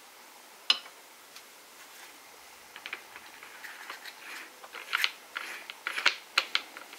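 Handling noise of a sanding disc being fitted onto an angle grinder's spindle by hand: a run of small clicks and scrapes of metal and abrasive, loudest in the second half, with a single sharp click about three-quarters of a second in. The grinder is not running.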